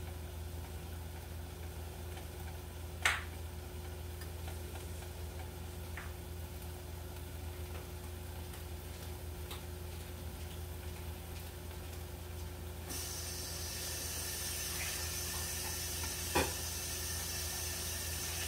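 Beef and broccoli cooking in a covered frying pan, sizzling softly under a glass lid, with a sharp pop about three seconds in and another near the end. About thirteen seconds in the hiss of the frying and steam grows suddenly louder.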